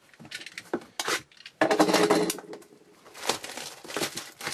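A sealed cardboard trading card box being cut open with a box cutter and handled: a few light clicks, then a scraping rasp lasting almost a second about a second and a half in as the wrap is cut, followed by taps and rustles of the cardboard as the box is lifted and opened.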